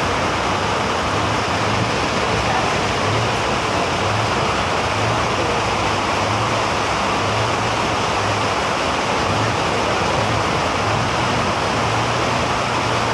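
Fast floodwater rushing and churning down a street in a loud, steady roar of water. A low hum comes and goes underneath it and holds steady near the end.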